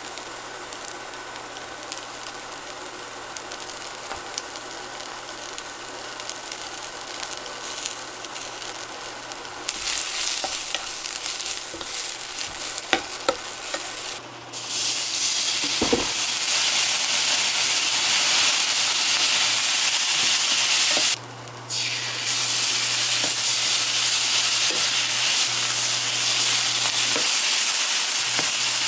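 Green onion, shiitake mushroom and fish cake strips sizzling in a nonstick frying pan while a wooden spatula stirs them, with a few taps of the spatula against the pan. The sizzle grows much louder about halfway through and breaks off for a moment about two-thirds of the way in.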